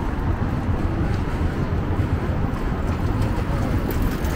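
Steady city street noise from road traffic, with a heavy low rumble.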